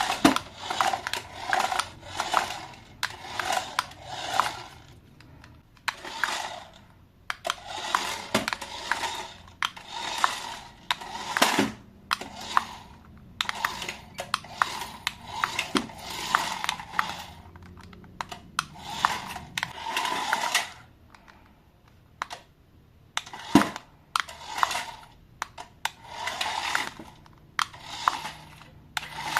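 Handling noise from plastic packaging and toys: irregular bursts of crinkling and rustling, about one a second, with sharp clicks, pausing briefly about three-quarters of the way through.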